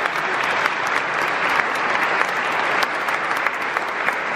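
A congregation applauding: many hands clapping together in a steady, dense patter.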